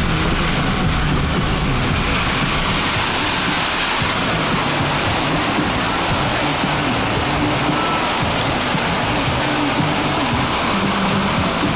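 Fast-flowing floodwater making a steady rushing noise.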